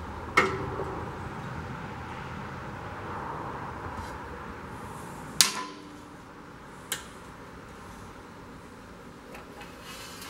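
Metal hand tools knocking against the smoker's steel plate: three sharp clanks, each ringing briefly, the loudest about halfway through, over a low background rumble that eases after it.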